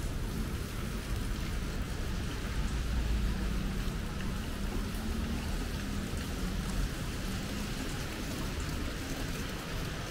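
Steady rain falling on the street, with a low rumble that swells and fades between about two and seven seconds in.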